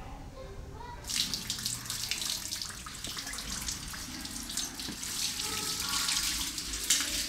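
Running water splashing, as from a tap, starting suddenly about a second in and continuing steadily with small splashes through it.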